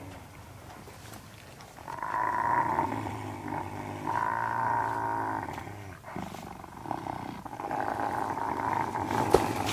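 Wolves growling: after a quiet start, three long, drawn-out growls begin about two, four and seven seconds in.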